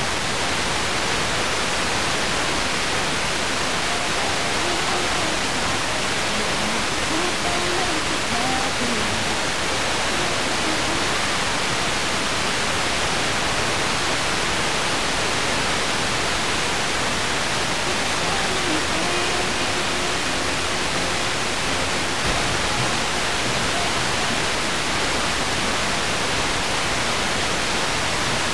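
FM radio receiver (Tecsun PL-606) tuned to a station too weak to hold, giving a steady static hiss. Faint traces of the broadcast show through the noise a couple of times, the sign of the signal almost gone between aircraft reflections.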